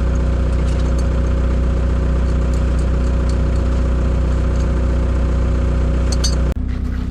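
An engine running steadily at idle. About six and a half seconds in, the sound changes abruptly and its higher part drops away.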